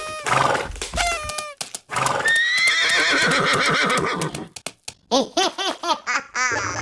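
Horse neighing: short calls, then one long, high whinny that quavers and falls from about two seconds in, and more short calls near the end.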